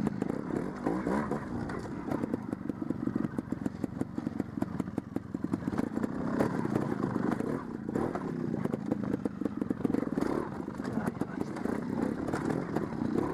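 Trials motorcycle engine running at low revs, the revs rising and falling repeatedly as the bike picks its way over rocks, with clatter and knocks from the bike on the stones throughout.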